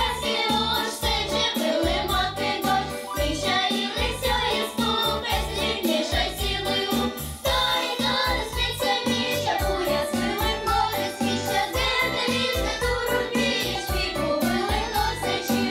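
A girl singing a song over a backing track with a steady beat.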